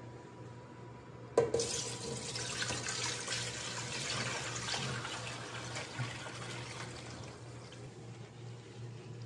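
Chicken broth poured from a steel pot through a mesh strainer into another pot: a sharp clink about a second and a half in, then a steady splashing pour that tails off near the end.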